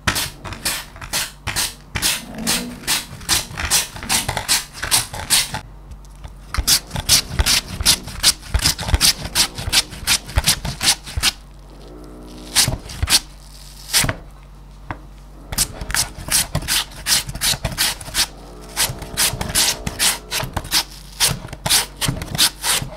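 Raw potato being shredded on a handheld julienne grater: quick, repeated rasping strokes, about three or four a second, with two short pauses.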